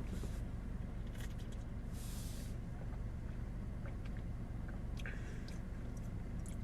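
Steady low hum with a few faint clicks and a short hiss about two seconds in.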